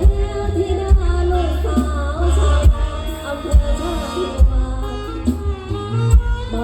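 Mor lam music from an amplified live band: a heavy bass drum beats about once a second under a winding melody.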